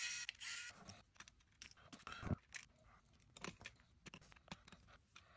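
Faint, scattered light metallic clicks and clinks of tiny Torx T5 screws being backed out of a small LED panel light and handled with steel tweezers.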